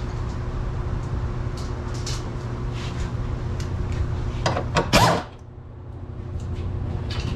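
Hand-tool clicks and knocks in a car's engine bay as a 10mm bolt is worked out of the plastic coolant overflow tank, over a steady low hum. A louder creaking scrape comes about five seconds in.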